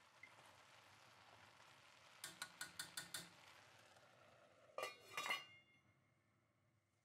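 Stainless steel pot lid clinking several times as it is handled over the pot. Then it is set down on the pot with two louder metallic clanks and a short ring about five seconds in.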